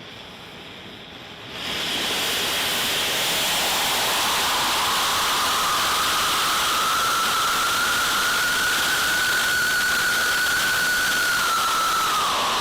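Small homemade alcohol-oxygen rocket engine with a 3D-printed metal nozzle firing: a quieter hiss jumps to a loud, steady rushing hiss about one and a half seconds in. A whistling tone rises slowly through the burn, then dips just as the sound cuts off suddenly at the end.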